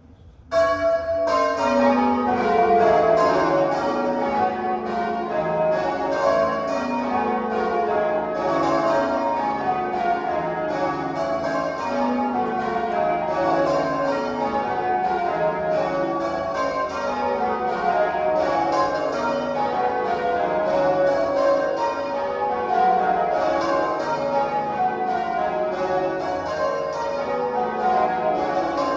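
Change ringing on the Bell Tower's big swinging tower bells: bells struck one after another from highest to lowest in repeating descending rows, starting abruptly about half a second in.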